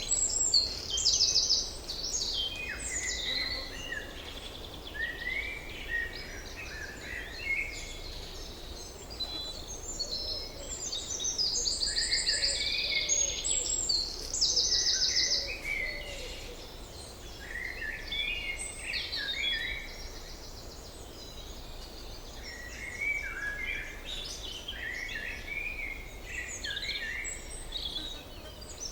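Several songbirds singing over one another: fast, rattling trills high up and short, quick-gliding chirps and whistles lower down, with a quieter spell about two-thirds of the way through. A faint steady low background noise sits beneath the song.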